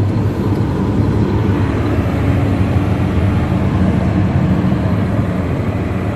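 Dump truck engine running with a steady low hum, with road and mechanical noise around it.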